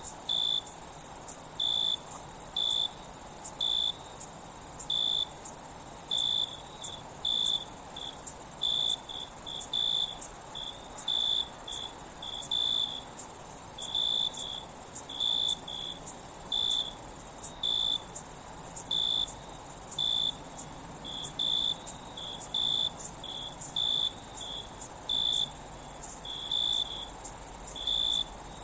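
Night chorus of crickets and other insects: a steady high-pitched trill runs throughout, with short lower chirps repeating about once or twice a second at an uneven pace.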